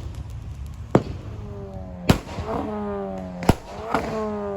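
Fireworks going off: sharp bangs about a second apart. Between them there is a held, slowly falling pitched tone.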